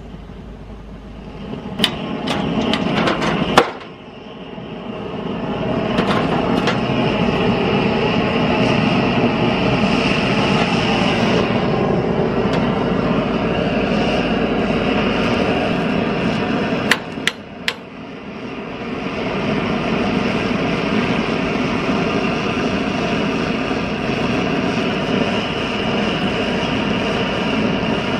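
Old pressurized blowtorch burning with a steady rushing flame, played on an air compressor's finned cylinder head. The flame sound drops away briefly twice, about 4 s and 17 s in, with a few sharp metallic clanks around those moments.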